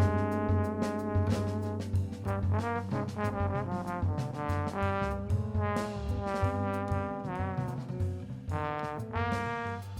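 Tenor saxophone playing a melodic line over a backing track with bass and drums; the freshly set-up horn is being play-tested.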